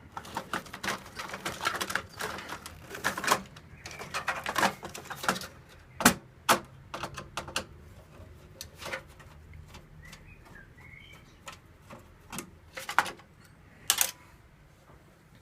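Clicks, knocks and rattles of hard plastic and metal computer parts being handled and worked loose, dense for the first few seconds, then sparser with a few sharp single clicks.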